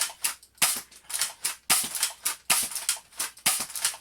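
Spring-powered airsoft SPAS 12 shotgun being pumped and fired over and over, one pellet per shot: a fast, irregular run of sharp plastic snaps and clacks, about three a second.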